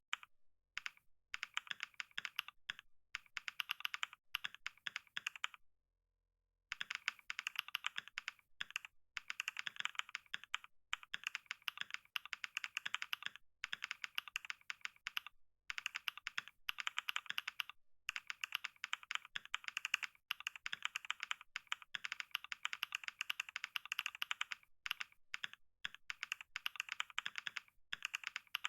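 Fast, continuous typing on a computer keyboard: rapid key clicks in quick runs, with a pause of about a second around six seconds in and a few shorter breaks.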